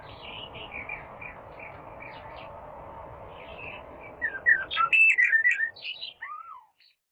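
Small songbird chirping over a steady low background hiss; about four seconds in it breaks into louder, quick, varied song phrases, and the recording cuts off near the end.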